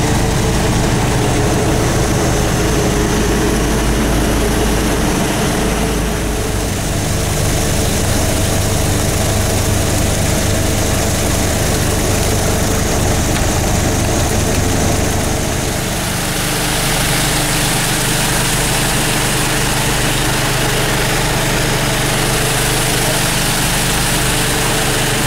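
Steady machinery noise from a drilling-mud solids-separation unit running, with engine hum and vibrating shaker screens throwing off wet cuttings. The low hum changes about 6 seconds in and again about 16 seconds in.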